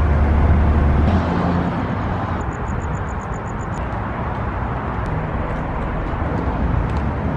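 Steady vehicle and road noise with a deep rumble that cuts off about a second in. A quick run of faint high chirps comes in the middle.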